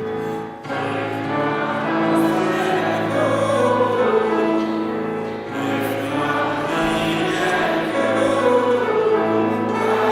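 A choir singing with instrumental accompaniment, coming in strongly about half a second in after a brief dip.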